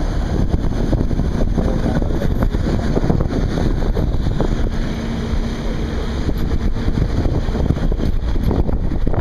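Moving car's steady road and wind noise, with wind buffeting the microphone.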